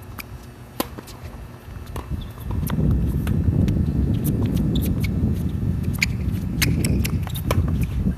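Tennis rally on an outdoor hard court: sharp pops of the ball off racket strings and bounces, the clearest about a second in, with scattered footstep clicks. Wind buffets the phone's microphone with a loud low rumble from about two and a half seconds in.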